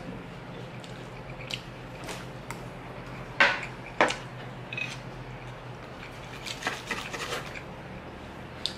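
Metal cutlery clinking and scraping against dishes while eating, with chewing between. Two sharp clinks about three and a half and four seconds in are the loudest, and a run of smaller scrapes near the end comes as a knife cuts steak.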